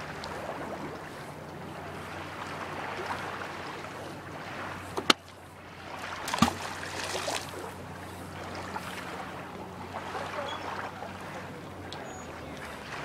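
Lake water lapping at the shore under a faint steady low hum, broken by two sharp knocks about five and six and a half seconds in, the first the louder.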